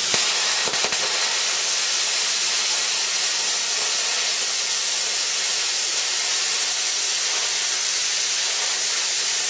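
Plasma cutter torch at 30 amps cutting through 3 mm steel plate: a steady, loud hiss of the compressed air and arc, with a couple of sharp clicks in the first second.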